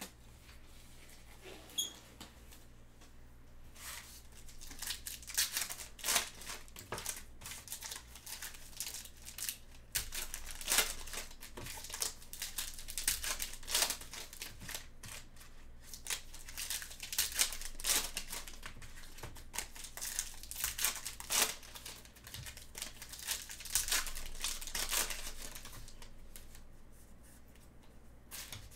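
Trading card pack wrappers being torn open and crinkled by gloved hands, a run of crackly rustling that starts a few seconds in and eases off near the end.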